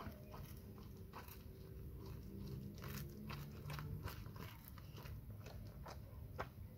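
Labrador retriever biting and chewing a large grilled sandwich, with irregular crunching bites into the toasted crust.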